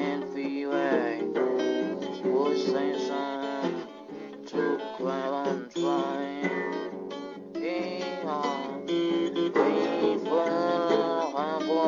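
Instrumental acoustic guitar music: strummed chords with a wavering melody line played over them.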